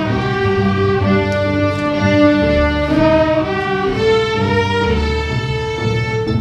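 Middle-school string orchestra playing: violins over cellos in held, bowed chords that move to a new chord about once a second, with a strong low part underneath.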